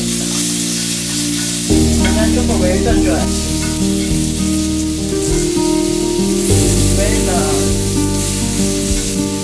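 Steak sizzling on the hot plate of a Balmuda The Plate Pro electric griddle as it is sliced, a steady frying hiss. Background music with sustained chords plays along, changing chord about two seconds in and again past the six-second mark.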